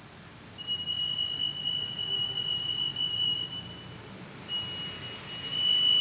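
EAS anti-theft gate of type CA 301 L (8.2 MHz RF) sounding its alarm, a steady high-pitched tone, set off by a tag carried between the pedestals in a test. The tone starts about half a second in, breaks off briefly past the middle, then sounds again.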